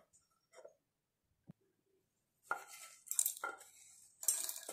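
A wooden spatula scraping dry-roasted whole spices (cardamom pods, cinnamon) out of a non-stick pan into a stainless-steel grinder jar, the spices rattling into the jar. It is near silent with a few faint clicks at first, then a series of scraping, rattling strokes starts about halfway in.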